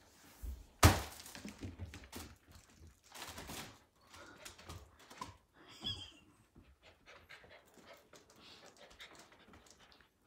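A Samoyed puppy panting as it plays with a balloon on a string, with one loud thump about a second in and scattered light knocks after it.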